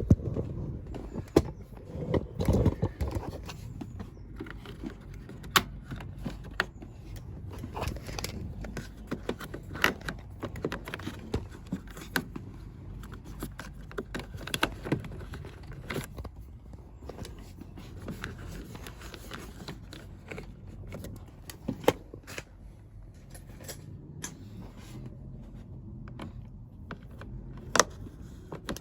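Hands working on an appliance: scattered clicks, knocks and scrapes of tools and parts being handled, with a cluster of heavier thumps a few seconds in.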